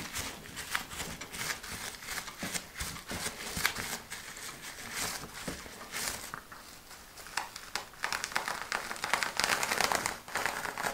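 Paint-coated plastic bubble wrap crinkling and crackling as hands press and rub it down on paper, a scatter of small crackles that thickens near the end as the wrap is lifted off the paper.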